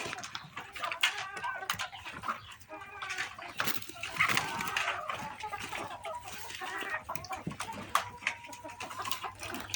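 Chickens clucking, with short calls overlapping throughout and a few sharp clicks among them.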